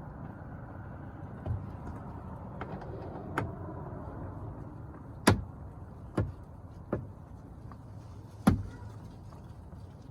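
Sharp clicks and knocks of parts and tools being handled while a replacement speaker and its bracket are fitted into a car door, about six in all, the loudest about five and eight seconds in, over a steady low background rumble.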